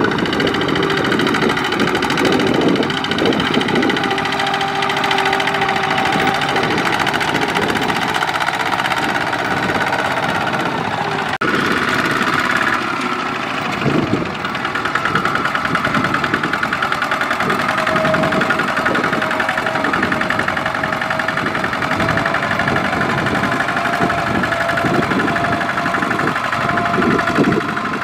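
Single-cylinder diesel engine of a two-wheel power tiller running steadily with a knocking beat while it pulls a loaded trailer through deep mud. The engine note changes abruptly about eleven seconds in.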